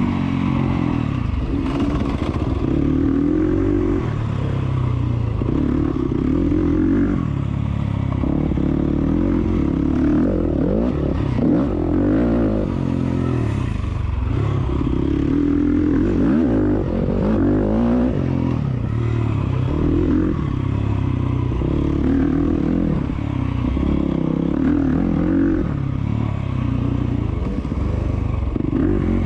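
Enduro motorcycle engine running hard, its pitch rising and falling every second or two as the throttle is opened and shut.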